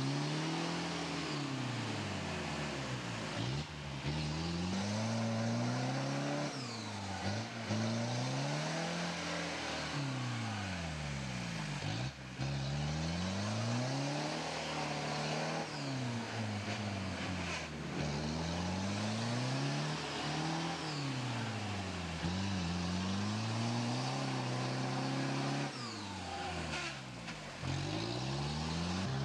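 A 4x4's engine revving up and dropping back again and again, every few seconds, as the vehicle struggles to drive through deep mud.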